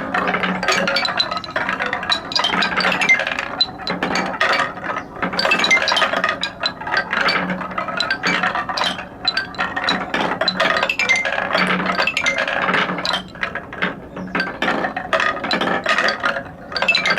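Many balls clattering down a wooden stair-step marble run, a dense, irregular stream of wooden clicks and knocks with a hollow ringing note from the steps.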